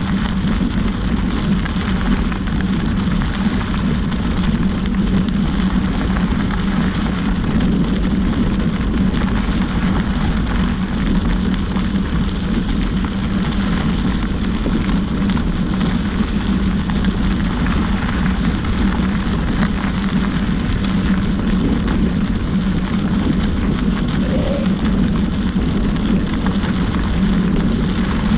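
Steady, loud rushing noise of wind buffeting the microphone while moving along a trail, without a break.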